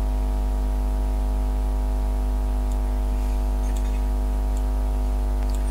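Steady low hum with a stack of unchanging tones, holding the same level throughout, with a few faint ticks over it.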